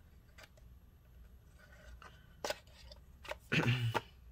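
Cardboard box and packaging being handled: scattered faint clicks and rustles, with a sharper tap about two and a half seconds in. A short vocal sound comes near the end.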